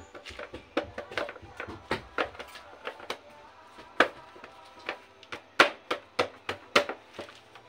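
Irregular sharp knocks and clicks, a few much louder than the rest, over faint background music.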